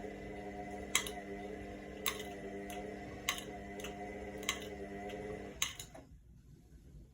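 Indesit washing machine running a wash cycle: a steady motor hum with a sharp click about once a second as the drum turns. About five and a half seconds in the hum stops, and after a last click or two the machine goes quiet.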